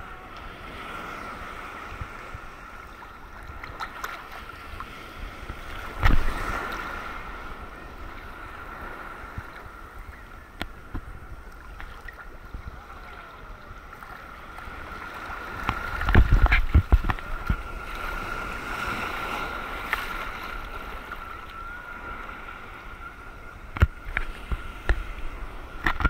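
Choppy sea water sloshing and lapping against a camera held right at the surface, muffled. Heavy thumps about six seconds in, a cluster of them around the middle, and another near the end, as waves slap against the camera.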